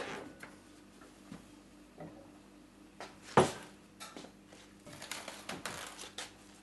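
Kitchen handling sounds from a mixing bowl being taken out of the microwave and stirred: a sharp click at the start, a single knock about three and a half seconds in, and a run of light clicks and clinks near the end. A faint steady hum lies underneath.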